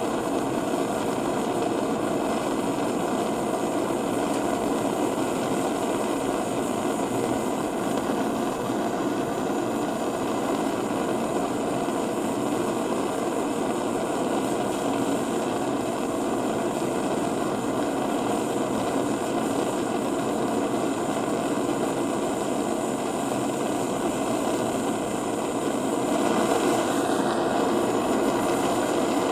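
Steady, even rushing noise with no rhythm or pitch, growing slightly louder near the end.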